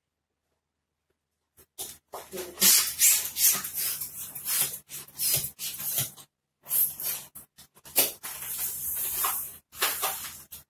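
Hand balloon pump hissing in repeated strokes, about one a second, as a long twisting balloon is inflated, starting about two seconds in.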